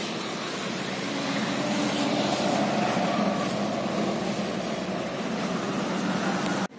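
Steady hum of road traffic, swelling in the middle and cutting off suddenly just before the end.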